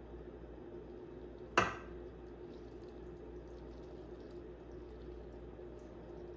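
Kitchen sounds while cooking: one sharp clink or knock of cookware about a second and a half in, over a steady low hum.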